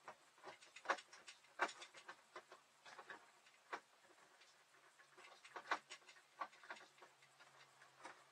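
Faint, irregular clicks and taps of screws being worked out of the valance above an RV window by hand. A faint low hum sits underneath from about halfway through.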